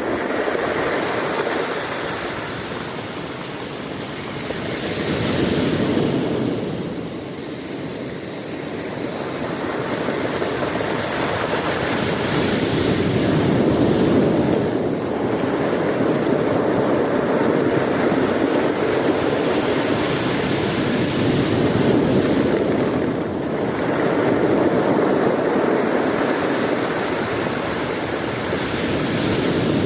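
Sea waves surging in: a steady rush of surf that swells and eases every few seconds.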